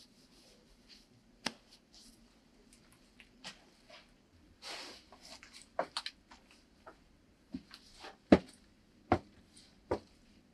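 Scattered knocks and a short rustle as old wooden boards are handled and lifted, then evenly spaced boot steps on wooden stairs, about one every three quarters of a second, while a man climbs carrying a board.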